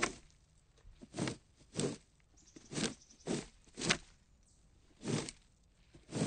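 Plastic rake dragged in short scraping strokes, about eight of them at uneven intervals.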